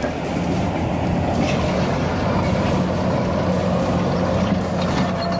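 A bulldozer's heavy diesel engine running steadily.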